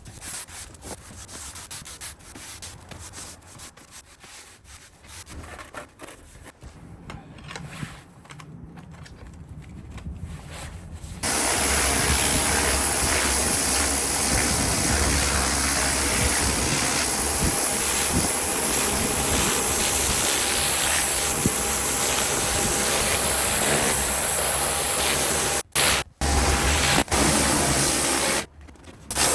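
Quiet, irregular scratchy scraping, then about eleven seconds in a Kränzle K10/122 pressure washer starts spraying: a loud steady hiss over a low motor hum. It cuts out briefly twice near the end.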